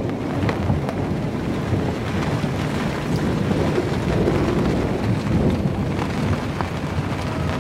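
Heavy rain pouring down in a squall, an even, steady hiss with a dense low rumble underneath.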